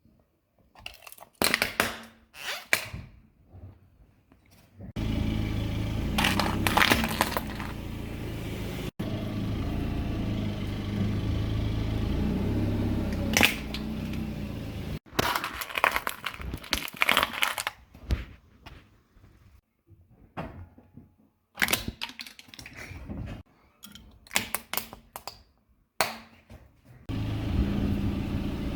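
Objects cracking and crunching in quick clusters as a car's tyres crush them, between short quiet gaps. From about five seconds to about fifteen seconds, and again near the end, a steady low car engine runs under the crackling.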